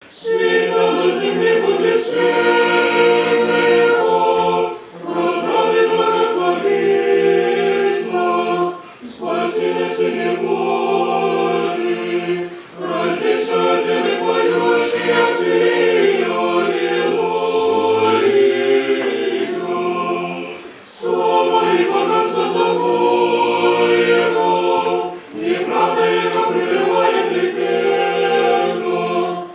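Orthodox church choir singing a liturgical chant a cappella in several parts. The singing comes in phrases of about four seconds, each followed by a brief pause.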